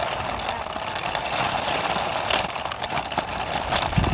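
RC car driving, a steady whir of its small motor mixed with the noise of its wheels rolling over the ground.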